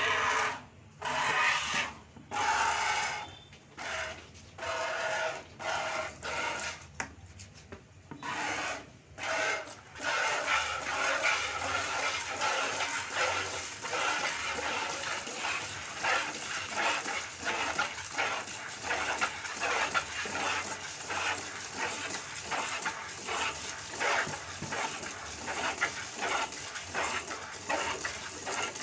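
A cow being milked by hand: jets of milk squirt into a plastic bucket. For the first ten seconds the squirts come singly, with gaps. They then settle into a quick, steady rhythm of alternating squirts.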